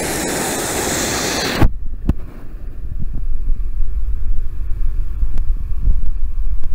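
River water rushing over a small weir, a loud even hiss. About a second and a half in it changes abruptly to a low, gusty rumble of wind buffeting the microphone, with a few sharp clicks.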